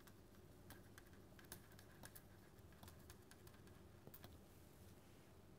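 Faint, irregular clicks and taps of a stylus writing on a pen tablet, most of them in the first four seconds, over a low steady hum.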